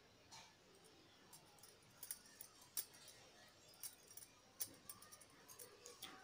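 Near silence, with faint, irregular light clicks from hands working wool with a crochet hook.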